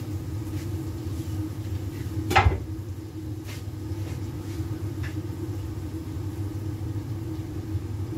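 A steady low mechanical hum, with one sharp knock about two and a half seconds in and a couple of faint clicks after it, as the gas stove's burner knob is handled.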